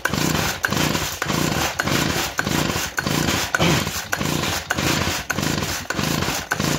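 Stihl hedge trimmer's two-stroke engine being cranked over by quick, repeated pulls on its recoil starter, about three pulls every two seconds, with the spark plug out and a compression gauge in the plug hole. The engine turns over without firing and builds only a little pressure, less than 10 psi on the gauge.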